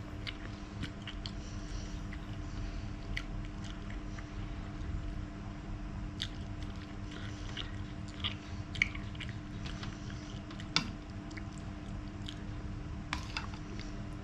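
A person chewing and biting food close to the microphone, with scattered moist, crunchy clicks and two sharper snaps about nine and eleven seconds in. A steady low electrical hum runs underneath.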